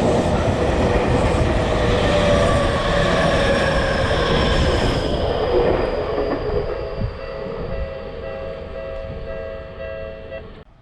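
Electric train passing on the rails, its rumble fading as it moves away, with a high whine slowly falling in pitch. Steady ringing tones join about six seconds in, and the sound cuts off abruptly at the end.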